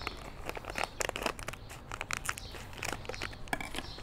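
Irregular crinkling and crunching of dry fishing-bait ingredients and their packaging being handled and mixed by hand.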